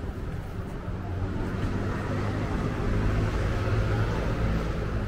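A motor vehicle passing close by, its low engine hum and tyre noise growing louder to a peak about three to four seconds in, then easing off.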